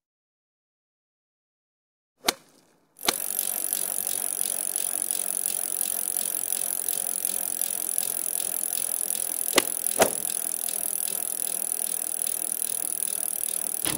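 Silence, then two sharp clicks, after which a steady mechanical rattling with a high hiss starts about three seconds in and keeps on. Two more clicks come through it around ten seconds in.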